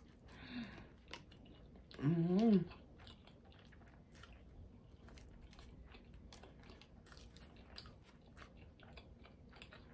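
A person chewing a mouthful of chicken nugget, with many faint, irregular wet mouth clicks. A short hummed "mmm" comes about two seconds in and is the loudest sound.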